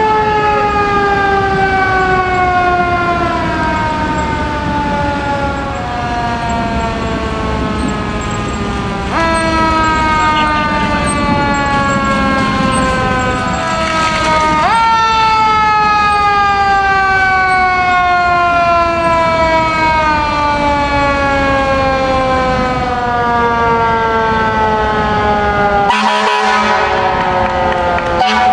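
Fire engine sirens wailing as the trucks pass. Each wail jumps up sharply in pitch and then slides slowly down over several seconds, and it starts again about four times, with more than one siren sounding at once.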